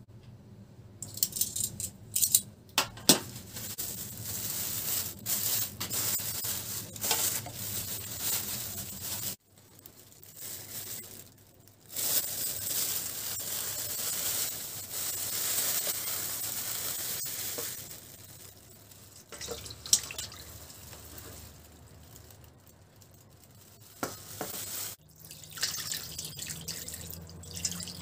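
Pork liver slices in a plastic tub of milk being lifted and turned with metal tongs: wet splashing with sharp clicks. Midway, the milk is poured off in a steady stream for about five seconds. Near the end, tap water starts running onto the liver in a metal colander.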